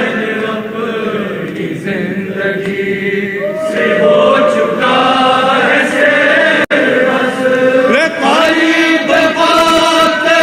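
Men's group reciting a Shia nauha without instruments: a lead voice and a chorus of male voices chanting together. The sound breaks off for a split second about two-thirds of the way through.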